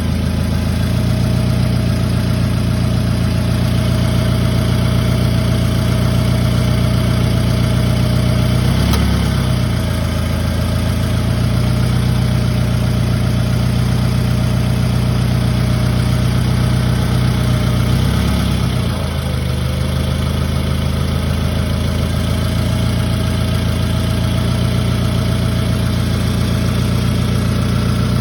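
Toyota Camry engine idling, with an intermittent ticking that the owner cannot identify. The idle note shifts briefly twice, about nine seconds in and again near the nineteen-second mark.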